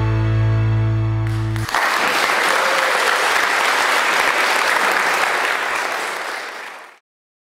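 Background music of held, sustained notes cuts off abruptly a second and a half in, giving way to guests applauding steadily. The applause fades and stops just before the end.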